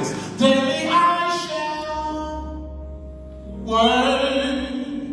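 A man singing a slow worship song into a microphone through the sanctuary's PA speakers, in two phrases of long drawn-out notes. A low steady hum runs underneath from about two seconds in.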